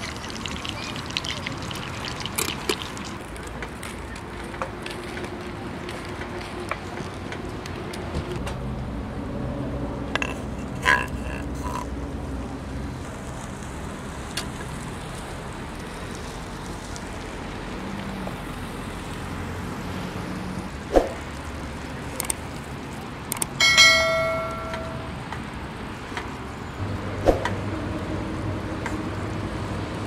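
Tomato sauce sizzling and simmering in a frying pan on a portable gas stove, with a wooden spatula scraping and knocking against the pan. Near the end a single ringing clink, the loudest sound, rings for about a second.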